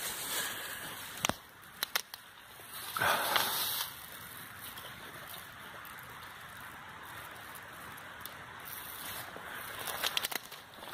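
Footsteps and rustling through dry twigs, needles and forest-floor litter, with a few sharp twig snaps in the first two seconds and a louder brushing rustle about three seconds in. More crackling rustle comes near the end.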